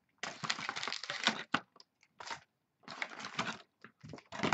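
A cardboard box of trading cards and its packaging being handled and opened by hand: irregular crinkling, rustling and scraping in several short spells.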